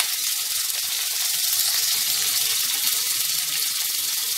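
Onion chunks and whole spices sizzling steadily in hot oil in a kadhai.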